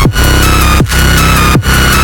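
Loud dubstep electronic music: a heavy, distorted bass with a regular beat about every three-quarters of a second, each beat followed by a falling low sweep, under a sustained high synth line.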